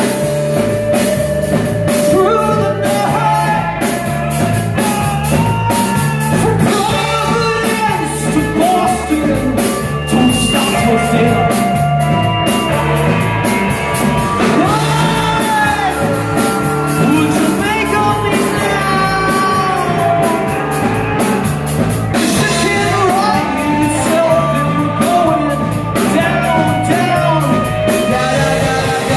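Live rock band playing: a male lead singer over two electric guitars, electric bass and a drum kit keeping a steady beat.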